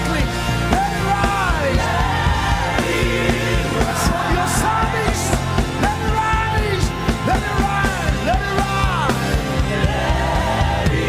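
Live gospel worship music: a voice singing long gliding runs over a full band with heavy bass and a steady beat.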